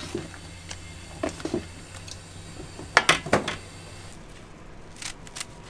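Metal ladle knocking and scraping against a large stainless steel basin while stirring a thick red chili mixture, with a quick cluster of sharp clinks about three seconds in. A low steady hum runs underneath.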